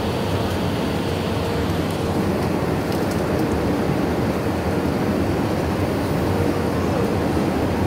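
Steady cabin noise inside an Airbus A319 on short final and landing: an even rumble from the engines and airflow, with no sudden events standing out.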